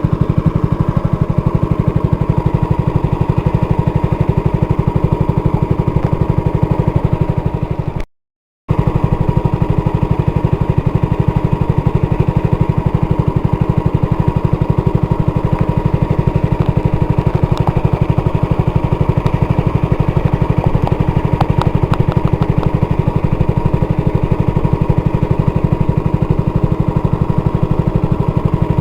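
A small engine running steadily at a fast, even beat, dropping out for about half a second around eight seconds in.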